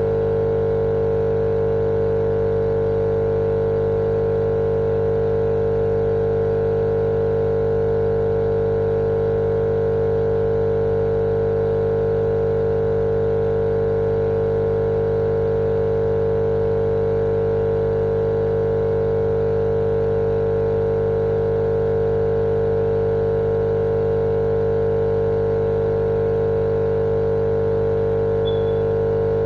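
A steady, unchanging machine drone with a strong mid-pitched hum and several fainter steady tones under it, played as a continuous sleep sound for babies.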